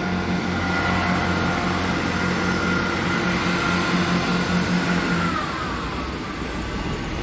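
Underfloor diesel engines of a Northern Sprinter diesel multiple unit running as the train moves through the station: a steady engine hum with a whine above it. About five and a half seconds in, the hum stops and the whine glides down in pitch as the engines ease off.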